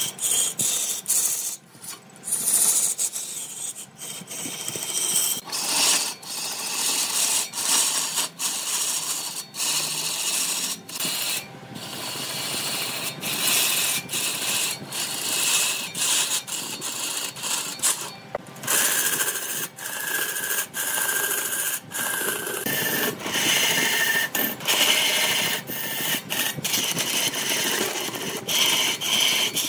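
Turning tool cutting into wood spinning on a lathe: a rough, rasping scrape that breaks off and starts again abruptly many times.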